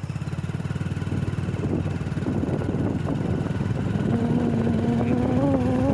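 Vehicle engine running at a steady road speed, heard as a rapid low pulsing. About four seconds in, a steady humming tone joins it and rises slightly.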